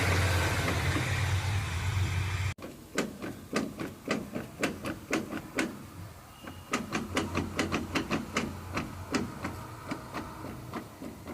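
A Toyota Innova's abnormal knocking from the wheel side and a rear joint. A steady low running hum gives way about two and a half seconds in to a long run of sharp, uneven clicks and knocks, two or three a second.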